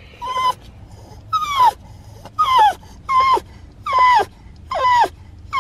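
A pug whining in a string of about seven short, high cries, each sliding down in pitch: frightened whining, which the owner calls terrified.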